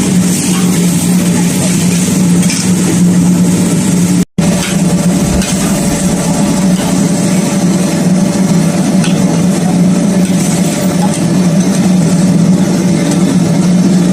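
An engine running steadily with a constant low drone. The sound cuts out completely for a split second about four seconds in.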